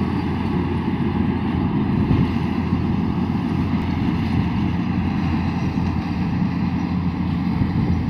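Yanmar AW70 combine harvester's diesel engine running steadily as it harvests lodged rice: an even, low drone without breaks or changes.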